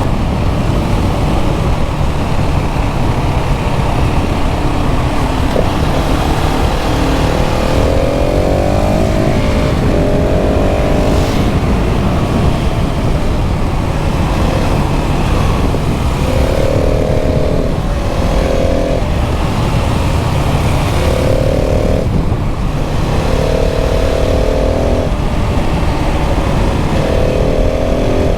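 KTM 690 SMC R's LC4 single-cylinder engine under way, rising in pitch under throttle and breaking off at each gear change several times, over a steady rush of wind noise.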